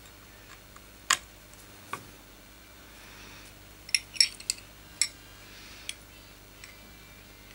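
Sharp metal clicks and clinks of a petrol lighter's metal case and insert being handled and fitted together: a loud click about a second in, another near two seconds, a quick cluster of clicks around four seconds, then a few lighter ones.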